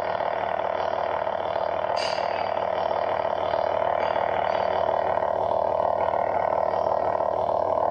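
Lightsaber idle-hum sound effect from a lightsaber sound-effect chip: a steady electric buzz, with a faint brief swell about two seconds in.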